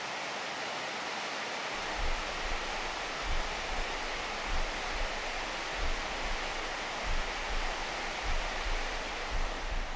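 Steady rushing noise, with soft low thuds about every second and a quarter starting about two seconds in.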